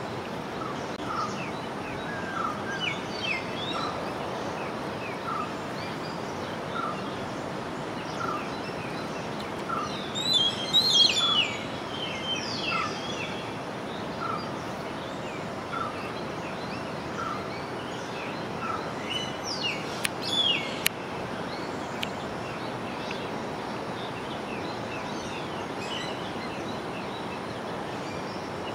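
Birds calling: one bird repeats a short note about once a second through the first half, and bursts of higher chirps come from other birds about ten and twenty seconds in, over a steady background noise.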